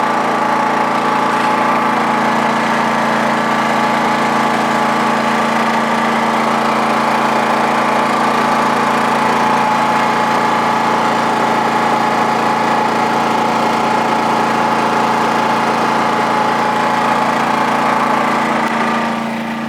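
WEN 56380i inverter generator running steadily under load, at about 60% while powering an RV air conditioner and a couple of lights. Its hum holds an even pitch throughout and eases slightly in level near the end.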